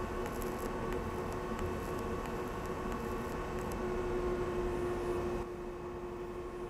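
Pulse-mode TIG welding arc from an Everlast 251Si multi-process welder, hissing steadily with a faint hum under it. The hiss falls away about five and a half seconds in.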